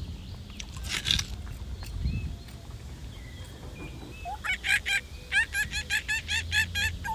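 Domestic fowl calling: a rapid run of short, repeated honking calls, about five a second, starting a little past halfway. A short scratchy noise comes about a second in.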